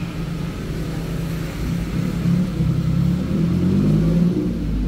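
Vehicle engine running with a low rumble, its pitch rising about three seconds in as it speeds up.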